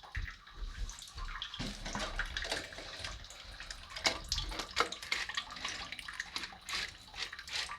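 Water trickling and dripping, with scattered light clicks and knocks from plastic toilet-tank parts being handled.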